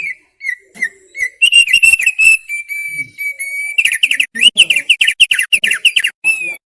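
Thick-billed white-eye (opior paruh tebal) singing one loud whistled phrase. A few short notes lead into a long, steady whistle, which breaks about four seconds in into a fast run of down-slurred notes and ends on a single note.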